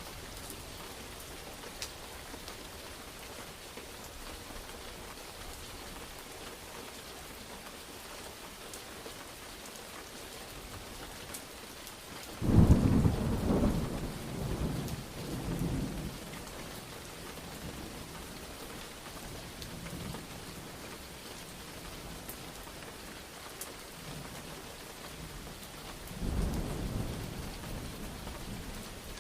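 Steady rain falling, with a loud thunderclap about halfway through that rolls on in waves for a few seconds, and a second, weaker rumble of thunder near the end.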